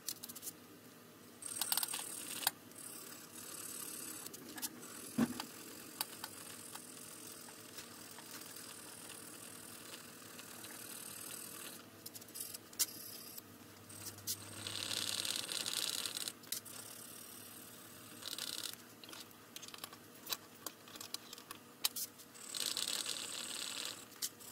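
Steel bayonet blade being abraded by hand: a few separate scraping strokes of an abrasive along the metal, the longest near the middle and near the end, with scattered light metallic clicks.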